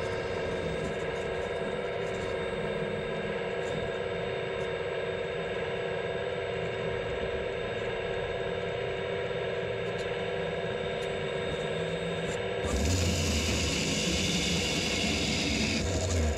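RC model excavator's hydraulic pump running with a steady whine as the grapple saw head is positioned. About 13 seconds in, the grapple saw's small chainsaw starts, runs for about three seconds cutting through the tree stem, and stops.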